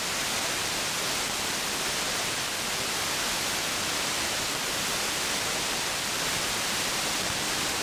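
CB radio receiver hissing steady static with the squelch open: no station is coming through on the channel.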